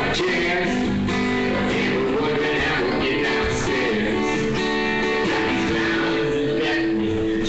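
Acoustic guitar strummed in a live performance, playing steadily without a break.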